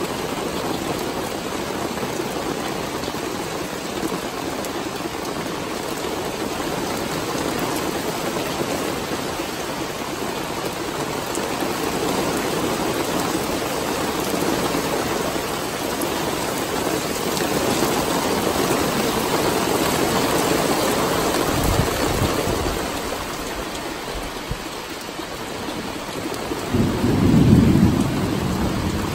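Steady heavy rain falling, with thunder rumbling low near the end, loudest a couple of seconds before the end.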